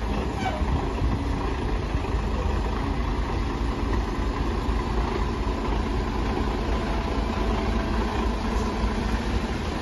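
Heavy vehicle's engine running steadily, a low even rumble.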